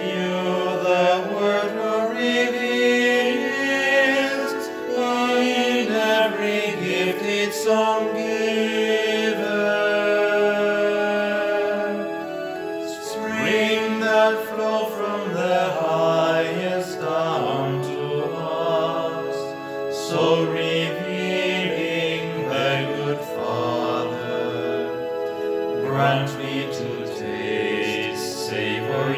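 A group of priests singing a hymn.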